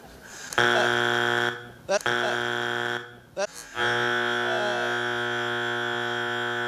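Talent-show judges' buzzer: a steady electronic buzz that sounds in several abrupt stretches with two short blips between them, the last one long.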